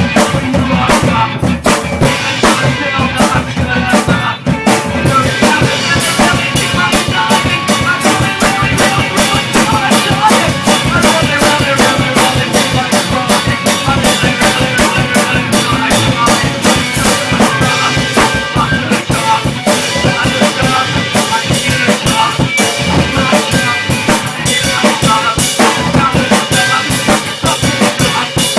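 Band demo song: a full drum kit pounds a steady, driving beat over bass and other instruments.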